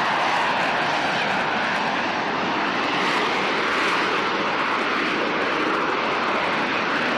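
AV-8B Harrier's Rolls-Royce Pegasus vectored-thrust turbofan running at hover power during a vertical landing: a loud, steady rushing jet noise that holds even throughout.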